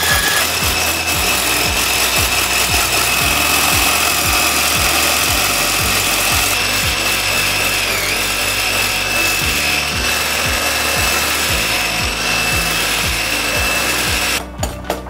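Electric hand mixer whirring steadily as its beaters whip instant coffee, sugar and amaretto into a thick dalgona foam in a glass bowl. It stops near the end, followed by a few clinks.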